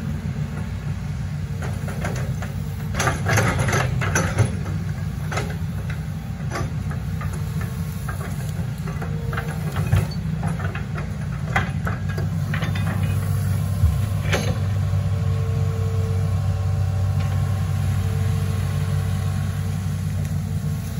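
Diesel engine of a Hitachi Zaxis 210F amphibious excavator running steadily, with scattered knocks and clanks as the bucket and boom work the mud. About twelve seconds in the engine note grows fuller and a higher whine joins it, coming and going, as the arm swings.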